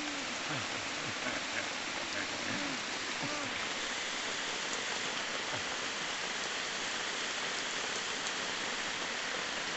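Heavy rain falling on forest leaves and leaf litter, a steady even hiss with a few sharper drop ticks.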